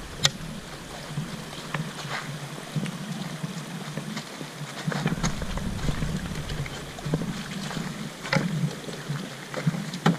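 A canoe being walked down a shallow, rocky stretch of river: scattered knocks and scrapes against the rocks, about half a dozen, over the steady wash of running water.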